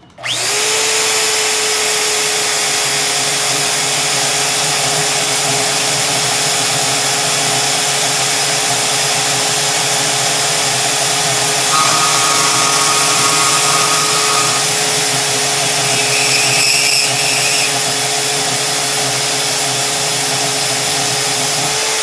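Portable band saw spinning up quickly at the start, then running at a steady, constant whine while cutting a workpiece along a marked line.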